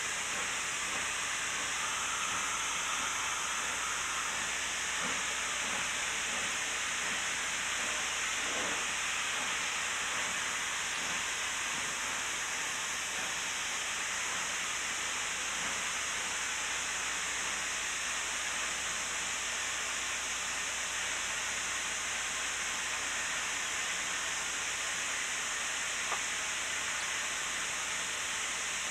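Steady hiss of steam in the cab of a narrow-gauge K-36 2-8-2 steam locomotive, with no exhaust beat and a few faint knocks.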